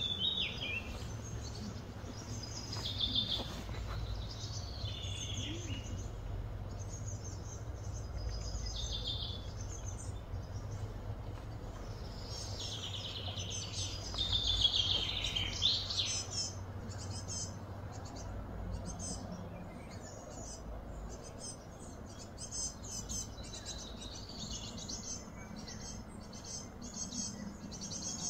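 Birds chirping and calling in short repeated phrases, loudest about halfway through, over a low steady rumble.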